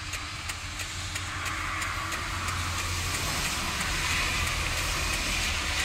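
Truck engine idling inside the closed cab: a steady low hum under a hiss of rain that slowly grows louder.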